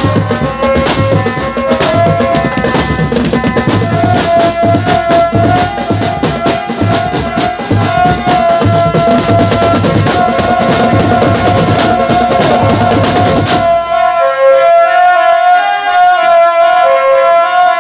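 Live drumband music: drums and percussion keep a steady beat under a held melody line. About fourteen seconds in the drums drop out, leaving the melody alone.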